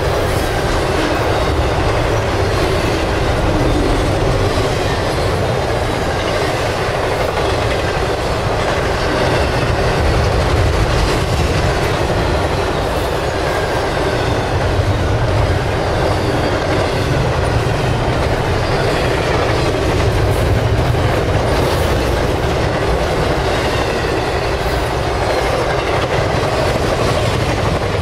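Long intermodal freight train of trailers and container cars passing at speed, nearly 70 mph: a steady loud rumble with the clickety-clack of wheels over the rails.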